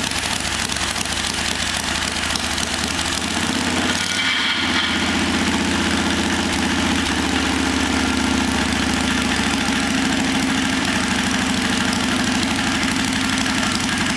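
Carberry V-twin motorcycle engine, built from Royal Enfield Bullet parts, running on its stand with the throttle worked by hand. About four seconds in its note rises and it runs on steadily at the higher speed.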